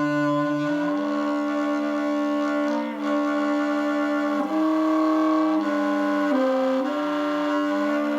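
Saxophone played softly while the player sings into it at the same time, the growl technique. A held sax note sounds together with a second, sung pitch that shifts in steps, so the two form changing intervals.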